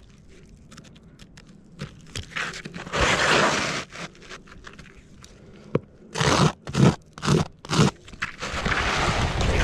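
Scraping and crunching on gritty asphalt roof shingles as the roofer works and shifts on them. There is a long scrape about three seconds in, a quick run of four or five crunches around six to eight seconds, and more scraping near the end.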